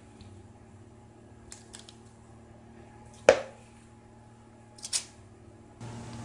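A few short, sharp knocks and taps from filling a metal muffin tin lined with paper cups, as handfuls of mixture are scooped from a plastic mixing bowl. The loudest knock comes about three seconds in and another near five seconds. Near the end the background changes to a steady low hum.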